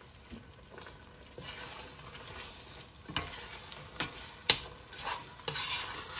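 A metal spoon stirs chicken and red curry paste in a stainless steel pot, scraping and knocking against the pot several times in the second half. The food sizzles over medium heat.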